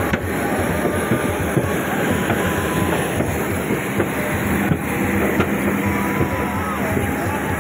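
Loud, steady drone of jet aircraft noise on the apron beside a parked Boeing 737-800.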